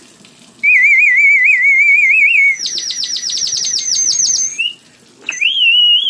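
Clay water bird whistle blown in long breaths, the water inside making it warble like birdsong: first a lower warble, then a higher, faster trill, and after a short break another warble near the end.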